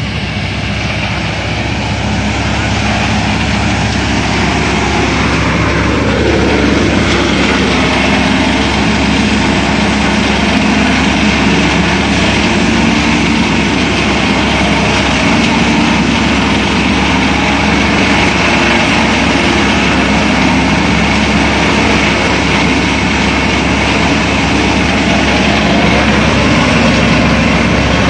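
Paddy thresher running under engine power: a continuous, loud mechanical din that builds up over the first few seconds and then holds steady.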